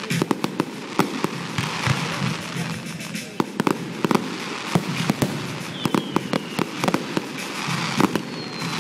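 Fireworks display: a rapid, irregular run of bangs and pops from bursting shells, several a second, over a steady hiss from spark fountains. Two brief high whistles sound in the second half.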